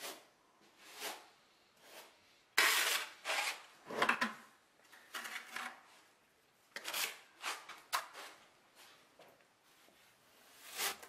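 Notched steel trowel scraping and scooping thinset mortar, against a plastic bucket and along a shower tray's edge: a dozen or so short, irregular scrapes.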